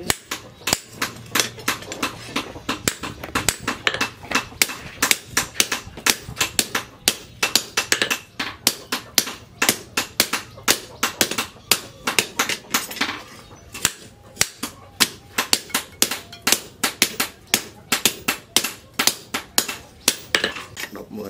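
Hand hammer forging a red-hot leaf-spring steel blade on a post anvil: a steady run of sharp metallic blows, about three a second.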